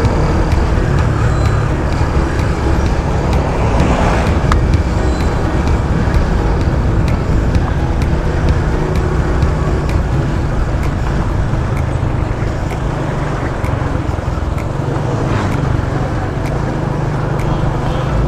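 Wind rushing over the rider's camera microphone with a small motorcycle engine running underneath while riding along a road, with road and traffic noise.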